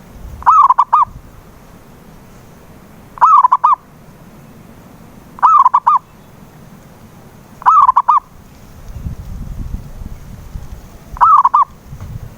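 Zebra dove (perkutut) cooing: five short rolling phrases of about three quick notes each, repeated every two to three seconds.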